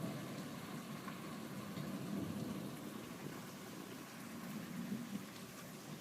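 Steady rain falling during a thunderstorm, with a low rumble of thunder rolling away that swells and fades twice.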